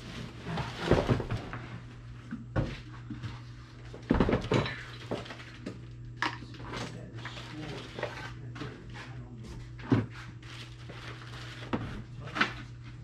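Crumpling and rustling of packing paper and cardboard with irregular light knocks as items are wrapped and set into a cardboard box, over a steady low hum.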